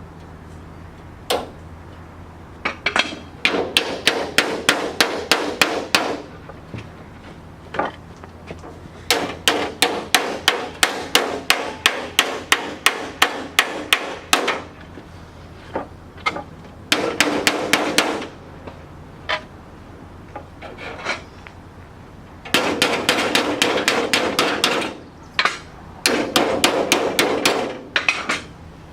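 Hammer rapidly striking sheet metal, about four to five blows a second, in several runs of a few seconds each separated by short pauses, the metal being folded and shaped by hand.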